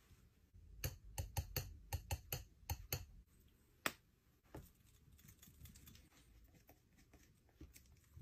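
Palette knife clicking and tapping against the palette while picking up and working paint: a quick, uneven run of sharp clicks in the first few seconds, then a few softer ticks.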